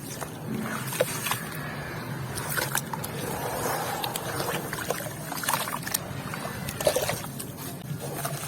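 White cement with grains being crumbled and crushed, giving irregular crunchy crackles and clicks mixed with wet, watery sounds from its damp parts.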